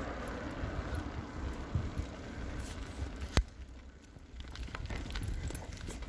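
Bicycle rolling along tarmac and onto a rough, patched path: a low tyre rumble with wind on the microphone and light rattles from the bike. One sharp click about three and a half seconds in.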